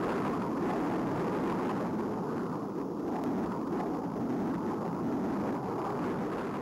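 Jet aircraft in flight: a steady rushing engine noise with no distinct tones.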